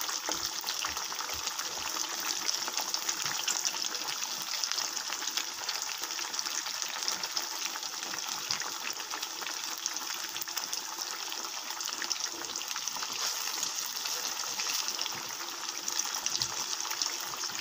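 Tempeh slices deep-frying in hot oil in a wok: a steady, dense crackling sizzle.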